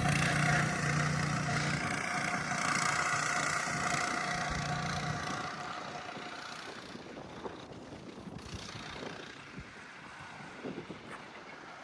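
Small vehicle engine running steadily, then fading out over the first six seconds or so as it moves away, leaving a few faint clicks.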